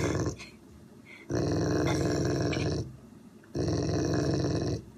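Dog growling in long stretches, three in a row with short pauses for breath between: a warning growl at a cat that has come too close.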